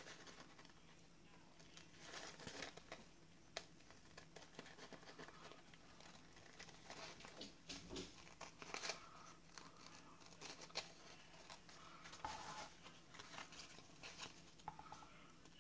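Faint, irregular snips of scissors cutting a thin decorative paper napkin, with the tissue crinkling as it is handled.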